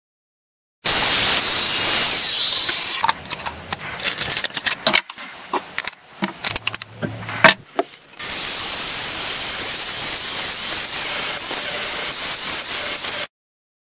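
Angle grinder with a flap disc grinding the steel blade of an old billhook for about two seconds, then a few seconds of clicks and knocks as the grinder and its disc are handled, then the grinder with a thin cut-off disc cutting through a steel rod, a steady run of several seconds that ends abruptly.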